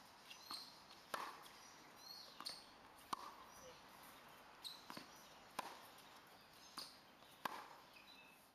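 Tennis balls struck by rackets in a rally: a sharp pop about every two seconds, with softer knocks in between. Birds chirp briefly in the background.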